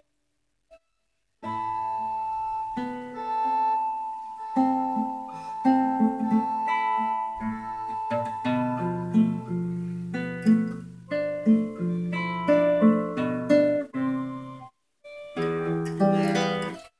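Instrumental music on guitar, plucked notes over a long held high note, starting after about a second and a half of silence.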